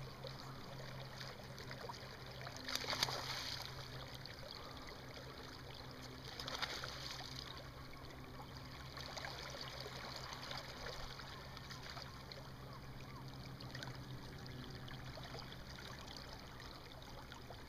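River water flowing around a wading angler's legs, with a low steady hum beneath it and two brief splashes, about three and six and a half seconds in.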